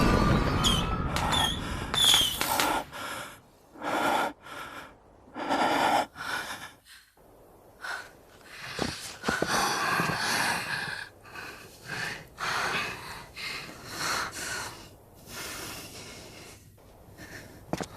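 A person breathing hard in uneven, gasping breaths, with short pauses between them.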